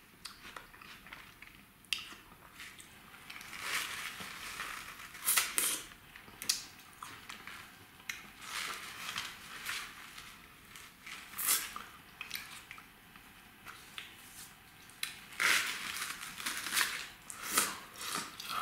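Close-up mouth sounds of eating a cola-flavoured squeeze-tube ice lolly: irregular biting, sucking and chewing of the frozen ice. The lolly's cardboard tube crinkles as it is squeezed.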